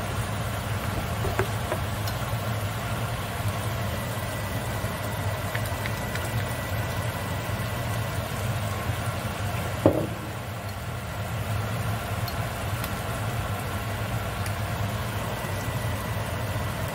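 Steady low mechanical hum with a faint steady high whine, broken by a few light ticks and one sharp clink about ten seconds in.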